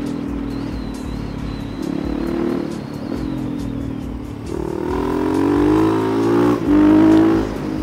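Supermoto motorcycle engine running under way. From about halfway it revs higher as the bike accelerates, dips sharply once for a gear change, then is loudest for a moment before dropping off near the end.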